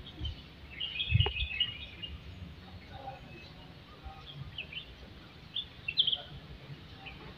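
Small birds chirping in short, high calls scattered through, with a cluster of chirps about a second in and a few more near six seconds. A brief low rumble on the microphone comes about a second in.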